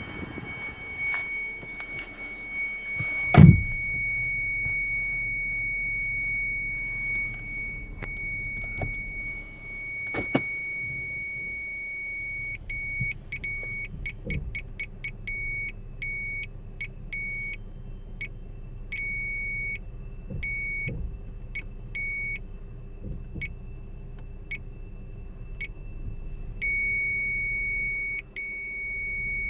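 A licence-plate parking sensor's in-car display unit sounds its distance warning. First comes a steady high tone. From about twelve seconds in it breaks into separate beeps that start fast, then slow and thin out, and it turns back into a steady tone near the end. The beep rate tracks the distance to the obstacle behind, and the steady tone means very close. There is a single heavy thump about three and a half seconds in.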